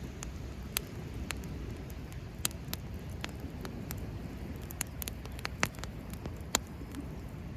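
Campfire burning, wood crackling with sharp, irregular pops a couple of times a second over a steady low rumble.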